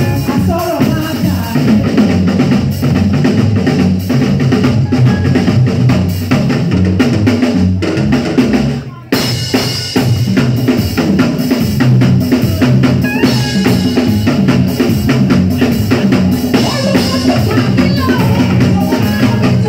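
A live drum kit playing a steady beat with bass drum and snare, in band music with a tambourine shaken along. The music drops out for a moment about nine seconds in, then comes straight back.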